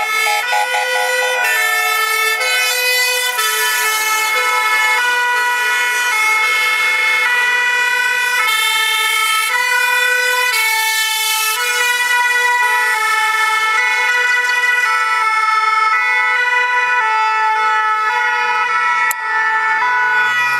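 Several two-tone sirens from a convoy of vintage fire engines sounding together, each stepping back and forth between a high and a low note about every half second, out of step with one another. A low rising-and-falling tone sounds under them near the end.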